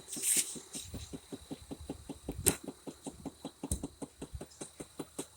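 1993 Chevy 1500 pickup engine cranking over on the starter in an even, rapid rhythm without catching, because the ignition is giving no spark. A sharp click comes about halfway through, and a dull thump follows a second later.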